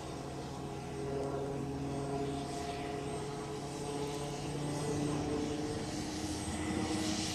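Piasecki X-49A compound helicopter in flight overhead: a steady drone of several held tones from its turbine engines, rotor and ducted tail propeller, growing louder about a second in as it banks.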